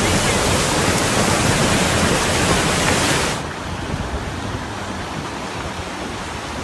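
Loud, steady rush of fast-flowing floodwater. A bit past the midpoint it cuts suddenly to a quieter, duller rush.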